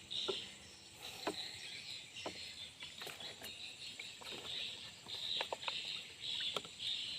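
Insects chirping in a steady pulse about twice a second, with a thin steady high whine behind them and scattered light clicks and knocks.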